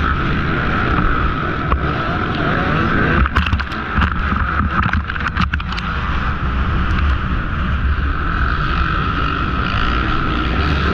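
Two-stroke KTM 150 XC-W dirt bike engine running hard under race load, its pitch rising and falling with the throttle, heard from the rider's helmet camera with wind on the microphone and other dirt bikes close by. A few sharp knocks come about three to five seconds in as the engine note briefly drops.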